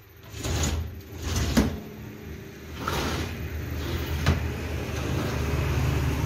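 Glass door panel of a shoe display cabinet being slid along its track and knocked shut, with a few sharp clicks. A low rumble builds through the second half.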